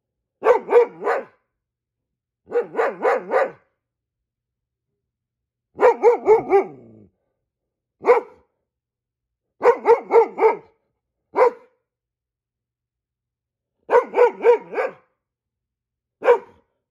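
Goldendoodle barking in short volleys of three or four quick barks, about eight volleys with pauses between, some of them a single bark. It is alert, guard-dog barking at squirrels it has spotted.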